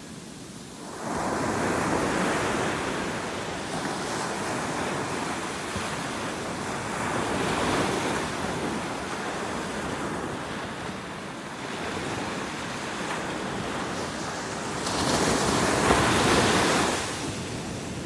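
Atlantic Ocean surf breaking and washing up a sandy beach, a rushing noise that swells and eases wave by wave. A wave comes in suddenly about a second in, and the loudest one breaks near the end.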